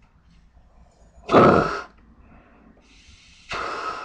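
Breath blown hard into a 3M half-face respirator while a hand covers its exhalation valve: a positive-pressure check of the mask's valve and seal. It comes as two rushes of air: a short loud puff about a second in, then a second one that starts softly and grows stronger near the end.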